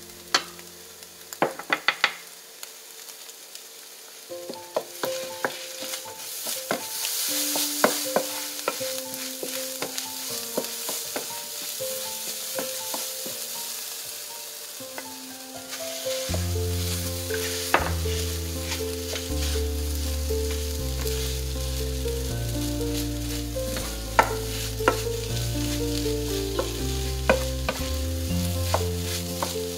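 Egg, green onion and rice stir-frying in a nonstick pan: a wooden spatula scraping and knocking against the pan over a sizzle. The sizzle grows louder for a couple of seconds around seven to nine seconds in.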